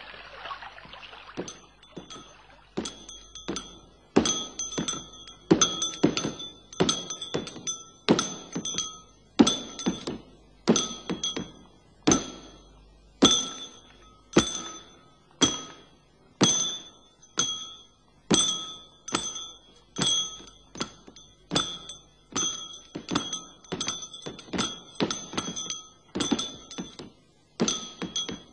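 Hammer blows ringing on metal in a steady rhythm, about one and a half strikes a second, starting about a second and a half in; each blow gives a brief bell-like ring: a smith's hammer on an anvil.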